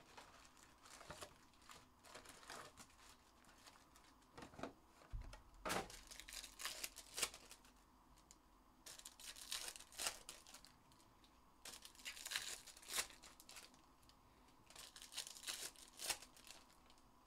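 Foil wrappers of Panini Select basketball card packs being torn open and crinkled by hand, in scattered short bursts.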